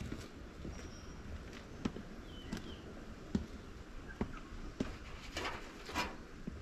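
Light, irregular knocks and taps of boards and tin sheets being handled as a beehive is covered up, with a few short bird chirps.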